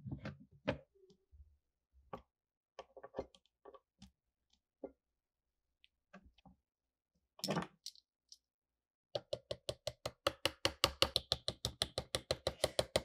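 Scattered light clicks and scrapes as a pointed file works at a black washer set in a wooden rifle stock. About nine seconds in, a rapid run of light hammer taps begins, about eight a second and growing louder, on a copper-coloured punch driving the washer down into the wood.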